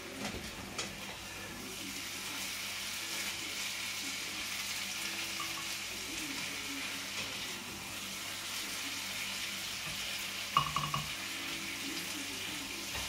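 Peppers, red onions and garlic sizzling steadily in olive oil in a frying pan, with a few clinks and knocks of a spoon against pan and blender jar as the vegetables are ladled into the blender, the loudest knock about ten and a half seconds in.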